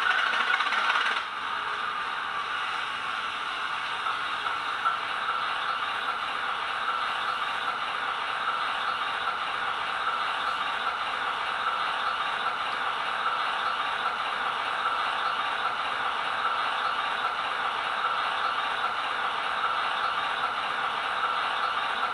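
Sound decoder of a ROCO H0 model of a ČSD T752 diesel locomotive playing its recorded diesel engine sound through the model's small on-board speaker, idling steadily with the locomotive standing still. The sound is a little louder for about the first second, then settles to an even idle.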